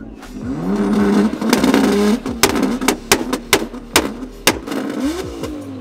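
Nissan Skyline GT-R (R33) twin-turbo straight-six revved while standing: the revs climb and hold for about a second and a half, then drop, with a string of sharp exhaust pops and cracks, mostly as the revs fall. There is another short rev blip near the end.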